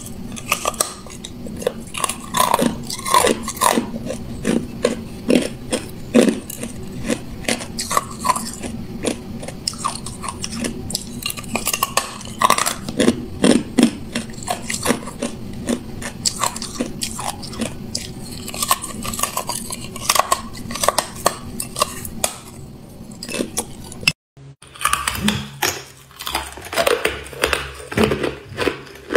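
Hard clear ice being bitten and chewed: a dense run of sharp crunches and cracks, broken once by a brief silence near the end before the crunching resumes.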